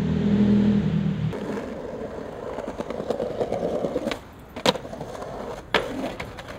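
A vehicle engine's steady hum that cuts off after about a second, then skateboard wheels rolling on pavement, with two sharp clacks of the board about a second apart near the end.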